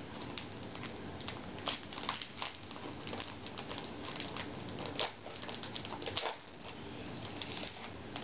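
Trading cards being handled and flipped through, giving irregular soft clicks and rustles over a steady faint hum.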